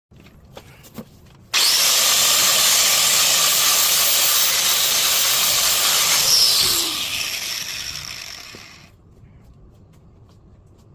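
A power cutting tool cutting into a car's steel frame. A loud, steady hiss starts suddenly about a second and a half in, then fades away over a couple of seconds.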